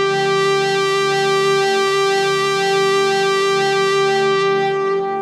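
One long note held on an electronic keyboard, run through a drive effect that makes the tone bright and full of overtones. The pitch and level stay steady throughout.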